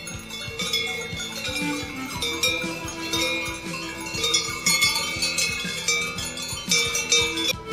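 Many cowbells on grazing cattle clanging irregularly and overlapping, a jumble of metallic rings at several pitches. The sound changes abruptly near the end.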